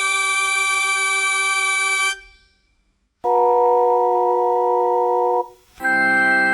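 Pipe organ sounding three held chords with steady, unwavering tones. The first stops about two seconds in, a second chord starts about a second later and cuts off, and a fuller third chord with deeper notes begins near the end.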